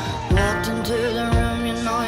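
Pop song with a sung vocal melody over a steady beat.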